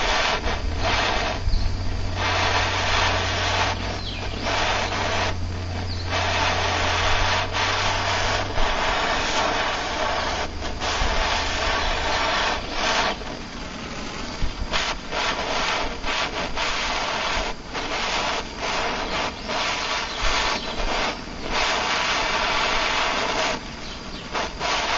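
Handheld gas torch flame hissing steadily as it heats the spine of a knife blade for a differential temper, the hiss dipping briefly several times.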